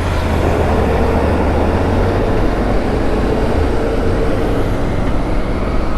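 Motorcycle on the move: steady wind and road noise over the rider's microphone with the engine's low rumble underneath.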